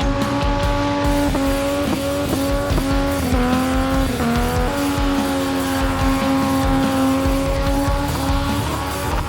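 Car doing a skid burnout: the engine held at high, steady revs with brief dips as the throttle is worked, over the continuous squeal of spinning tyres.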